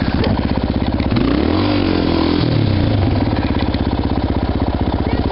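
Quad bike (ATV) engine running close to the helmet microphone, its firing pulses steady, then revving up and back down once between about one and a half and three seconds in.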